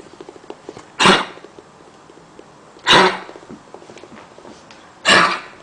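A dog with a chronic cough coughing: three short, harsh coughs about two seconds apart.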